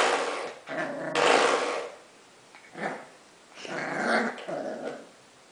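Cavachon puppy growling in a string of short bursts.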